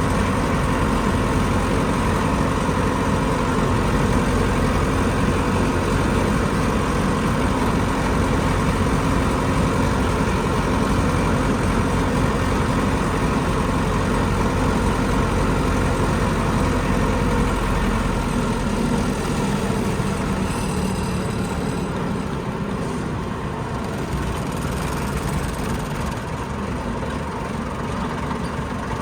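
Vehicle engine running steadily, with a low, even drone; it grows slightly quieter about two-thirds of the way through.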